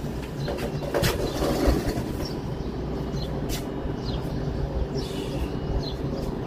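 A steady low rumble with a faint hum, and short high falling bird chirps every second or so.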